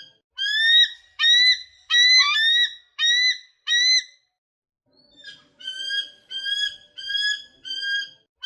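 A bird giving a run of short, clear, whistled calls, about two a second, each slightly rising. The calls stop for about a second in the middle, then start again in the same rhythm.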